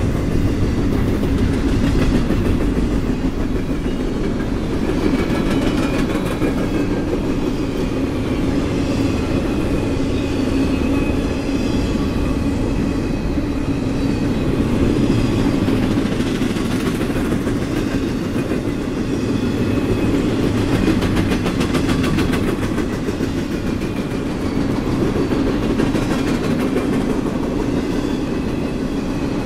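Double-stack intermodal freight cars rolling past at steady speed: a continuous heavy rumble of steel wheels on rail, with clickety-clack over rail joints and faint high wheel squeal.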